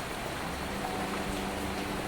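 Steady hiss of falling rain. Soft sustained music notes come in faintly about half a second in.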